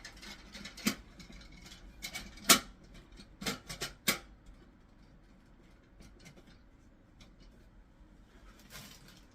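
A handful of sharp clicks and knocks as a new dual-flush valve is pushed into a toilet cistern and twisted until it locks in place. The loudest knock comes about two and a half seconds in.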